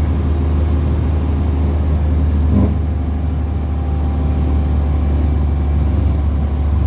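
Bus running at speed: a steady low engine and road drone with faint steady tones above it, and a brief knock about two and a half seconds in.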